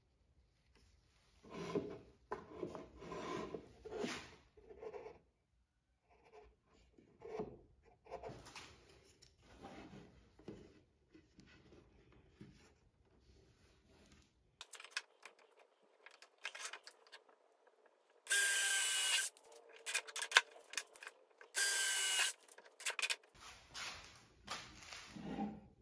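Wooden parts handled and rubbed together on a workbench, then two short bursts of a drill driving two screws into a small wooden block, each burst with a steady whine, with clicks around them.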